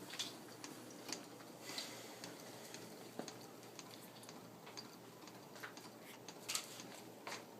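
Small homemade Stirling engine running off its heat source, ticking faintly at uneven intervals as it gradually slows down.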